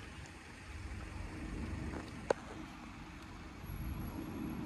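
Steady low rumble of road traffic, with one short sharp click about two seconds in.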